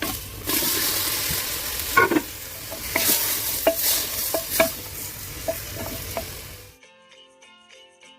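Food sizzling and frying in a pot while a spoon stirs, knocking against the pot several times. The sizzling cuts off abruptly near the end and background music follows.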